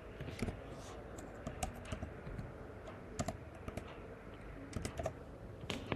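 Typing on a computer keyboard: a run of faint, irregular keystroke clicks.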